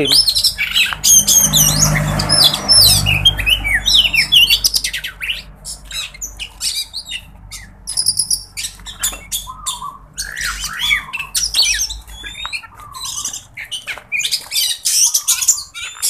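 Caged Oriental magpie-robins (kacer) singing: a rapid, varied run of sharp chirps, whistles and harsh notes, busiest in the first few seconds and again near the end. It is a full, strong song, which the keeper takes as a sign the birds have had enough sun. A low rumble sits under the first few seconds.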